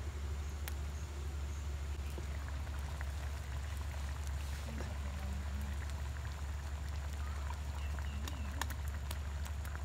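Fish curry simmering in an open clay pot over a wood fire, with a few sharp crackles from the burning sticks. A steady low hum runs underneath.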